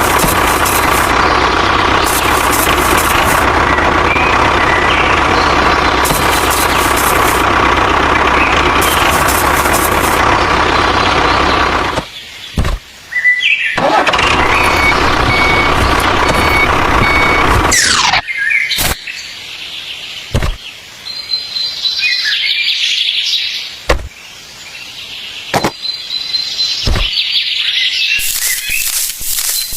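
A motor runs steadily and loudly, cuts out about twelve seconds in, runs again briefly, and stops for good about eighteen seconds in. After that come quieter outdoor sounds with bird chirps and a few sharp clicks.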